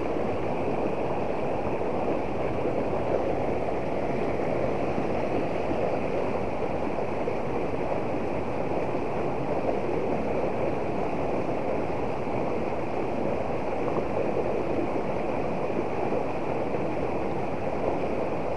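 Shallow rocky river rushing steadily over stones and small rapids.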